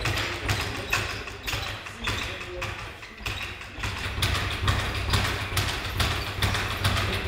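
A steady run of short taps and thuds, about three a second, from training in a boxing gym, with music under them.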